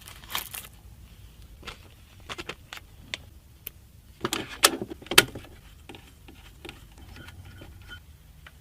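Hands handling computer parts and their packaging: scattered clicks, taps and short rustles, with a louder burst of handling about four to five seconds in.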